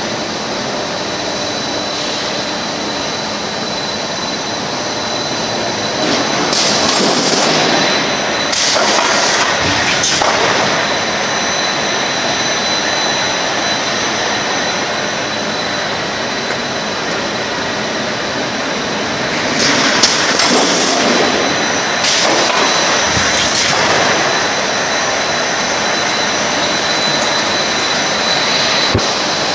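KINGJIME KJH40 cut-to-length line running: a steady machine noise with a thin high whine, rising several times into louder noisy stretches lasting a second or two.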